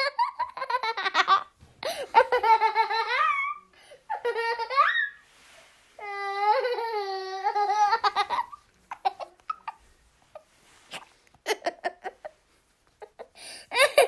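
A five-year-old boy laughing in repeated high-pitched bursts. After about eight and a half seconds the laughter breaks into short, scattered gasps, then comes back loud just before the end.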